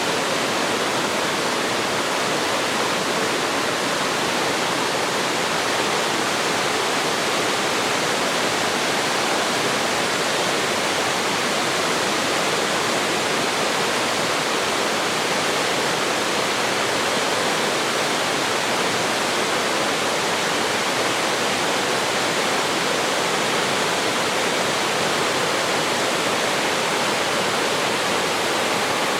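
Chilyeon Falls in Deogyusan's Chilyeon Valley pouring steadily: an even, unbroken rush of falling water.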